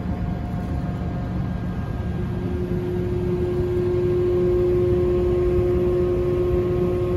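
Steady low rumble of a ferry's engines and machinery heard aboard, with several steady humming tones over it; one mid-pitched hum grows stronger about two seconds in.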